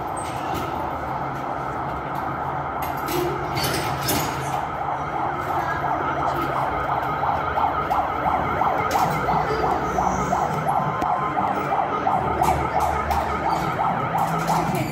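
Siren of a small electric fire-truck ride going continuously, a fast repeating yelp that is strongest in the second half.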